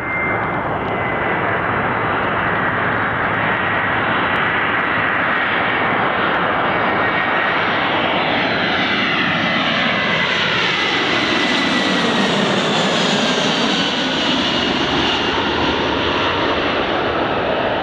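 Jet aircraft engines passing overhead, a loud steady rushing roar with a faint high whine. From about 8 to 16 seconds the sound takes on a sweeping, phasing quality that dips and rises again as the aircraft goes over.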